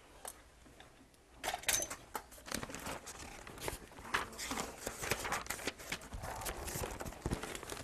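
Large sheets of chart paper being handled and set up on the board: irregular rustling and crinkling with small clicks and taps, starting about a second and a half in.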